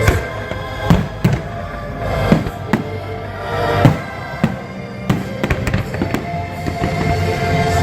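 Fireworks exploring over loud show music: a series of separate booms, then a quick run of small crackling bangs about five to six seconds in.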